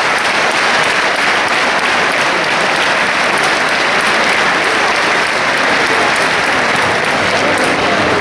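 Crowd in an ice hockey arena applauding steadily, many hands clapping at once without a break.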